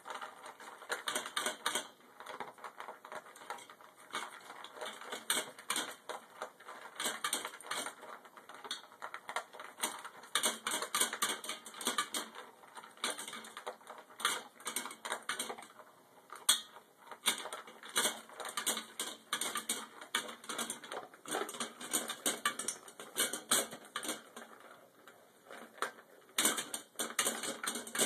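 A yellow Labrador eating dry food from a stainless steel bowl: fast, irregular crunching and clattering of the food against the metal bowl.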